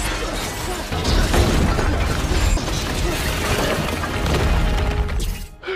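Action-film soundtrack: music mixed with loud crashing and booming sound effects, cutting away sharply near the end.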